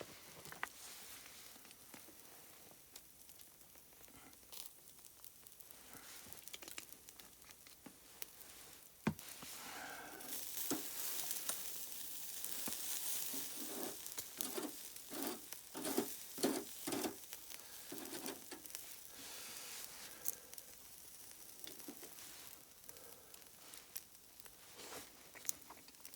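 A sizzling hiss that swells for several seconds in the middle, with scattered light clicks and a few soft knocks.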